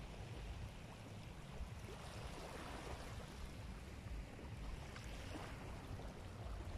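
Wind buffeting a phone microphone with a low, uneven rumble, over a steady wash of sea waves on a sandbar.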